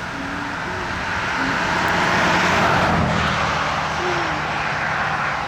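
A motor vehicle passing by on the road, its tyre and engine noise building to a peak about halfway through and then fading away.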